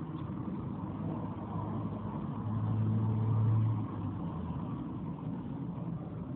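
Steady low rumble of background noise, with a louder, even low hum lasting about a second and a half in the middle.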